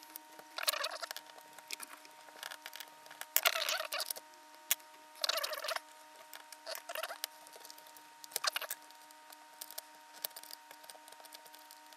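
Fingers scratching, clicking and tapping on a laptop's plastic chassis and small parts while the modem connector board of a ThinkPad T420 is worked loose. A faint steady hum runs underneath.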